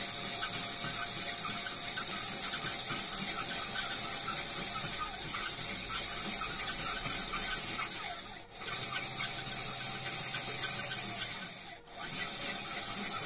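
Mechanical running noise like gears and a chain turning, steady with many irregular sharp clicks and a squeal. It breaks off briefly twice, about two-thirds of the way through and near the end.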